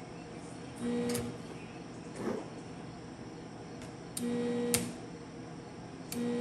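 Stick welder laying short tack welds on a truck's exhaust tip: three brief bursts of a steady electrical buzz, each about half a second long, with a few sharp cracks.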